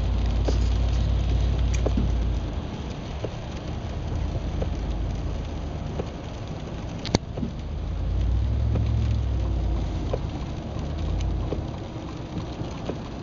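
Rain striking a car's windshield and roof, heard from inside the moving car, over a low rumble of engine and tyres on the wet road that swells twice. Scattered small ticks of drops, with one sharp click about seven seconds in.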